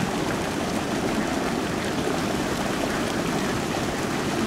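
A huge flock of domestic ducks in shallow water, thousands of birds quacking and splashing at once and blending into one steady, dense din.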